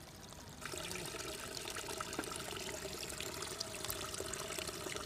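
Steady trickling, water-like noise full of tiny crackles and clicks, starting abruptly about half a second in.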